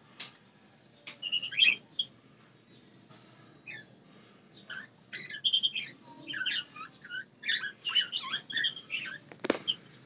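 A flock of budgerigars chirping and chattering in quick, high bursts that come in clusters, busiest in the second half. A single short knock sounds near the end.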